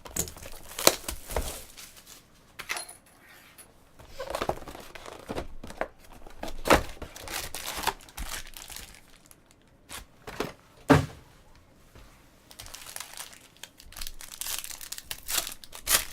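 Wrapping on sports trading card boxes and packs being torn open and crinkled in irregular bursts, with a sharp snap about eleven seconds in.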